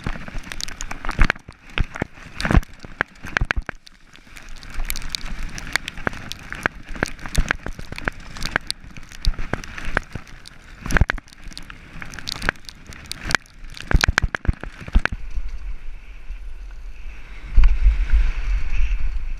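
Mountain bike descending a rough trail, recorded on the bike: many sharp clicks, knocks and rattles from the frame, chain and tyres over roots and rocks, over a noisy rush of tyres on dirt. From about three quarters of the way through, a strong low wind rumble on the microphone.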